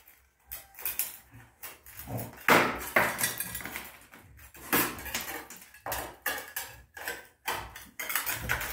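Metal spatula scraping grout out of the thin joint along a ceramic wall tile, in a run of irregular scratching strokes, to free the tile from the grout that still holds it.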